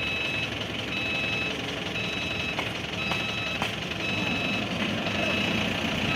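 Excavator engine running steadily while its travel alarm beeps, about one half-second beep every second, with two light knocks partway through.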